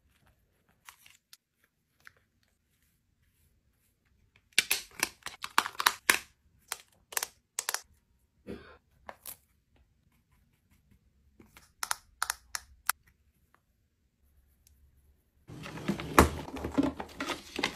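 Close-up ASMR handling of makeup cases: clusters of sharp clicks and taps as plastic and metal compacts are opened, tapped and handled. Near the end a drawer slides open and the hair tools inside rattle and clatter.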